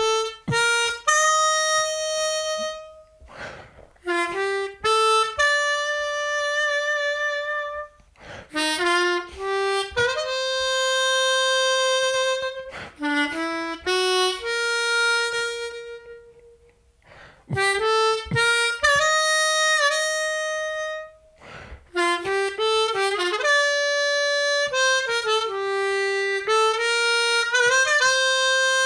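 Seydel 1847 Lightning diatonic harmonica played solo: phrases of single notes and long held notes, one held note wavering with vibrato, separated by short pauses.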